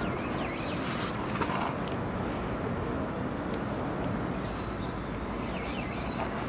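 Steady low outdoor background rumble, with a few faint high bird chirps near the start and again about two-thirds of the way through.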